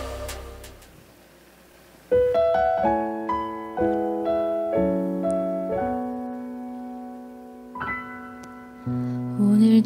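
Slow piano introduction to a ballad: after a short fading sound in the first second, soft chords and a gentle melody come in about two seconds in, each note struck and left to ring.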